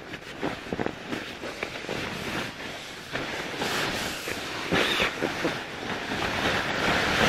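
Crinkling and rustling of a silvery foil-like bivy bag and nylon tent fabric as they are handled and pulled about, in irregular crackles that grow louder near the end.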